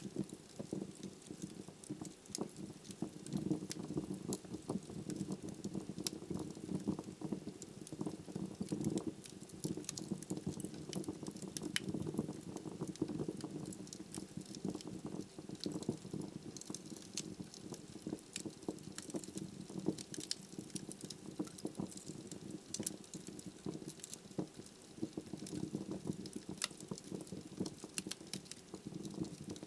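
Wood logs burning in a fireplace: a steady low rush of flames with frequent, irregular sharp crackles and pops.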